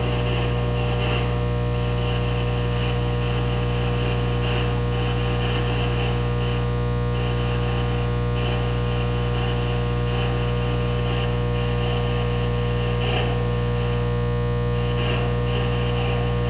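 Steady electrical hum and buzz, with a higher buzzing tone that cuts in and out in short stretches.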